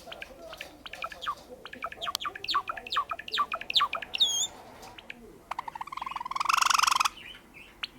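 Java sparrow singing: a quick run of clicking notes, a high whistled note, then a long buzzing rattle about six seconds in, followed by a few more clicks.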